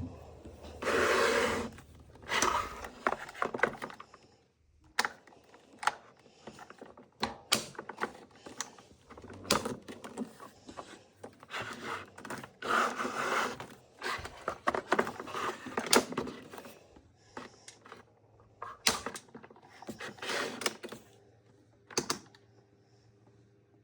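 Hands handling the plastic parts of a Luft oscillating desk fan: irregular clicks, knocks and short rustling bursts, with no steady motor hum.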